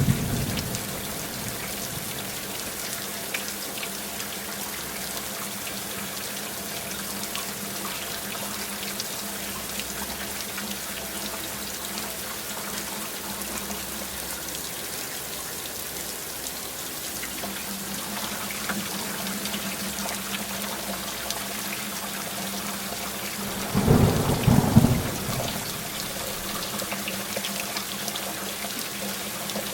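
Steady heavy rain, with a low thunder rumble swelling about three-quarters of the way through and dying away after a second or two.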